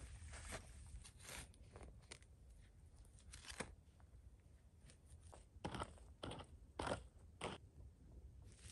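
Irregular crunching steps and handling on dry grass and stony ground. In the second half there are four louder crunches, about half a second apart.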